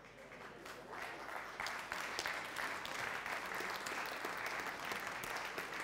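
Audience applauding: many hands clapping, building over the first second or two and then holding steady.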